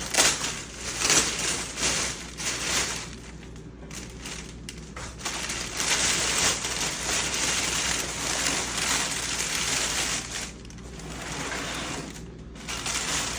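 Packaging being handled and unpacked: crinkling and rustling in spells, with a couple of brief lulls.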